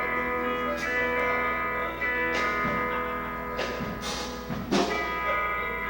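Instruments played through the PA during a band sound check: a held chord of many steady tones, broken by several short, noisy hits.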